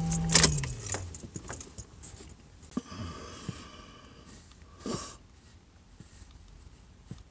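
Handling noise as the phone is moved about in the car: the last of the song breaks off with a loud click right at the start, then scattered light clicks and rustles follow, with a longer rustle about five seconds in.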